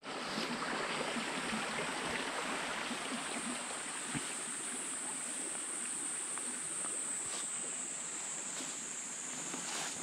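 Stream water running in a steady rush, under a continuous high-pitched drone of grass insects.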